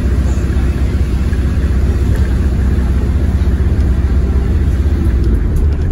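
Alexander Dennis Enviro400H hybrid double-decker bus driving along, heard from inside the cabin: a loud, steady low drone of the engine and drivetrain with road noise. A few light rattles come near the end.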